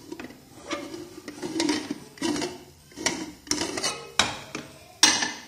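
Aluminium pressure cooker lid, its rubber gasket removed, being turned and worked free of the pot: a series of metal-on-metal scrapes and clanks, the loudest near the end as the lid comes off.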